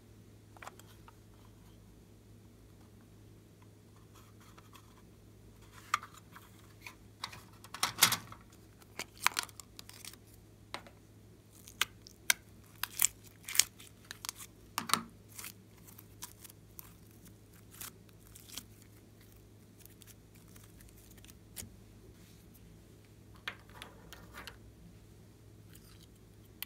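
Close handling sounds: scattered crinkles, clicks and sticky pops as fingers squeeze and pull soft pink slime and handle small plastic toys and bottles, busiest in the middle. A faint low hum runs underneath.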